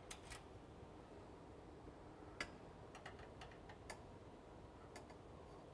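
Faint, irregular metallic clicks of a wrench working the fuel-line B-nut fittings as they are loosened and disconnected from the fuel nozzles, over quiet room tone.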